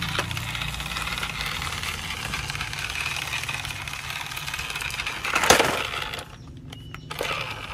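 Small electric motor and gearbox of a plastic remote-control toy dump truck whirring as it crawls over dirt, its plastic body rattling, with one loud clatter about five and a half seconds in.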